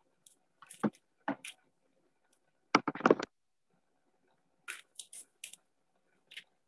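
Scattered short rustles, taps and clicks of objects being handled near the microphones of a video call, cutting in and out; the loudest is a quick cluster of knocks about three seconds in.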